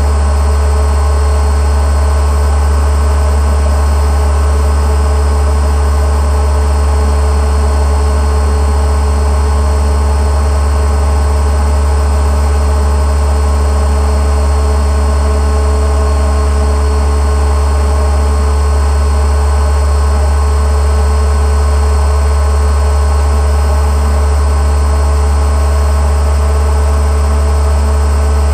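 Boat motor running at a steady speed, a constant low rumble with a steady hum above it.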